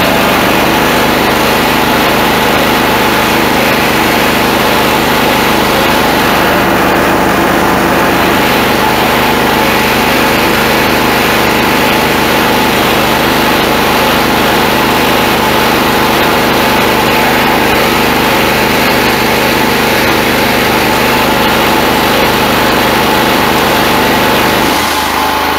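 Westinghouse WHXC8500E-PRO petrol generator running under load, powering a 2.4 kW (3 HP) single-phase Airmac piston air compressor that has restarted against tank pressure and is pumping steadily; the generator copes without faltering. About a second before the end the compressor cuts out at full pressure, the sound drops a little, and the generator runs on.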